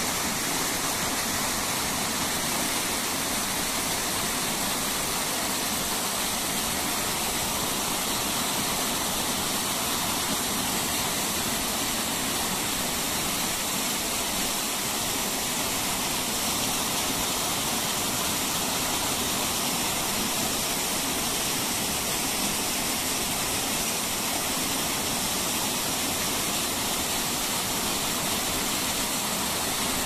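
Small mountain stream running and splashing down over rocks in little cascades, a steady sound of flowing water.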